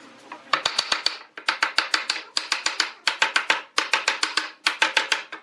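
Wooden mallet knocking a wooden panel into the slot of a wooden end block. A rapid series of sharp knocks comes in quick runs of several strikes a second, starting about half a second in.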